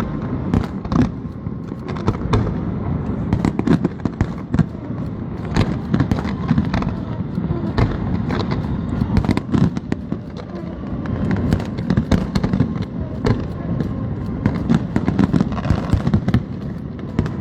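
Fireworks display going off: a dense, continuous run of booms and sharp crackling bangs over a low rumble.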